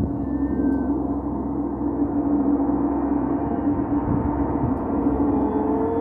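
Large gong on a stand being played, a dense, sustained wash of many ringing tones over a strong low hum. Near the end one tone starts to rise in pitch.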